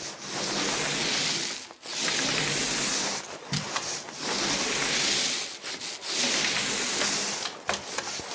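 Paint roller on an extension pole rolling wet paint onto a wall: a rasping hiss in about five long strokes of a second or so each, with short breaks where the roller turns. These are full-height strokes, top to bottom, made as the roller's load of paint runs low.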